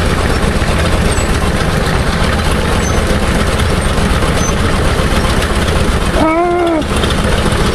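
1929 Ford Model A truck's four-cylinder engine running steadily, heard from close underneath the truck as a dense rumble.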